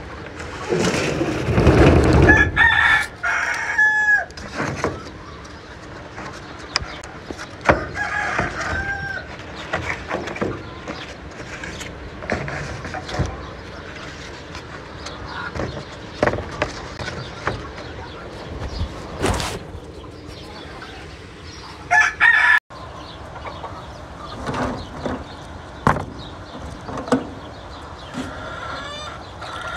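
Domestic chickens: a rooster crows a couple of seconds in, and hens call now and then, over scattered sharp knocks and clicks.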